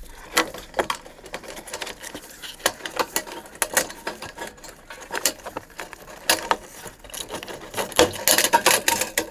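Irregular light clicks, taps and rattles of a Nissan 370Z fuel pump assembly's plastic top, hose and fittings being handled by gloved hands in the tank opening, busier near the end.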